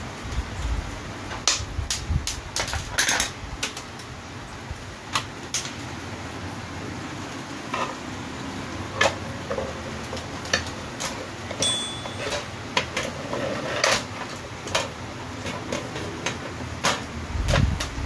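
Scattered, irregular clicks and knocks of a Brother typewriter's plastic case being handled and turned over.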